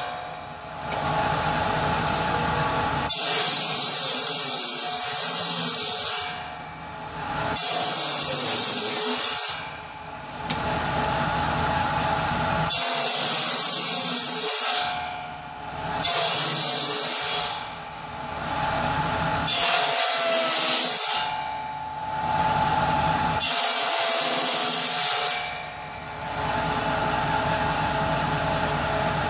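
Power saw cutting wood in six short cuts, each lasting about one and a half to three seconds, with the saw running free in between.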